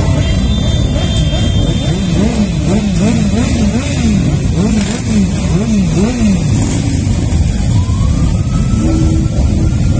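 Many motorcycle engines running together in a steady rumble, with one engine revved again and again, its pitch rising and falling about twice a second for a few seconds. Near the end a higher engine note rises.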